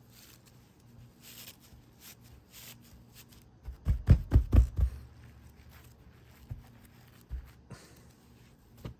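Hands rubbing and stretching a crocheted raffia panel on a tabletop, a faint scraping rustle. About four seconds in come a quick run of about five dull thumps as palms press and pat it flat.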